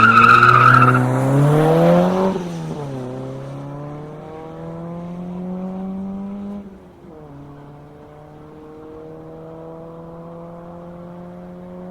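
Rally car launching hard from the start, its tyres squealing briefly in the first second as the engine revs climb. The engine pitch then drops at two gear changes, about two and a half and seven seconds in, and rises again after each while the car grows fainter as it drives away.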